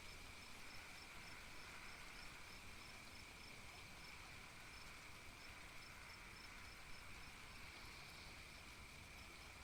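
Faint chorus of crickets: a steady trill with regular chirps about four times a second, over a faint steady hiss.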